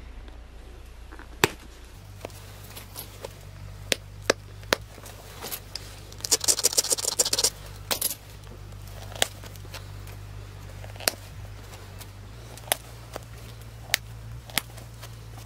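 Pressure flaking a flint arrowhead: sharp clicks as small flakes snap off the edge under a hand-held pressure flaker, about one a second, with a quick rattling run of many small clicks about halfway through.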